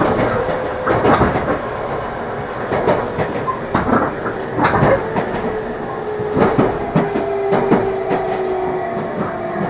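Running sound inside a JR Kyushu 813 series EMU motor car: the Toshiba GTO-VVVF inverter and traction motors whine, and the pitch slides slowly lower in the second half as the train slows alongside a station platform. Irregular clacks of the wheels over rail joints and points come through the whole time.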